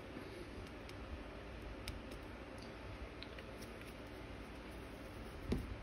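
Quiet room background with a few faint small clicks, and one soft knock near the end.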